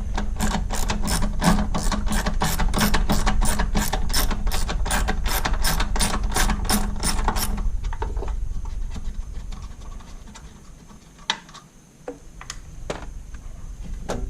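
10mm ratchet and socket clicking steadily, about three to four clicks a second, while it undoes a nut on the coolant reservoir mounting; the clicking stops about seven and a half seconds in, followed by a few light knocks.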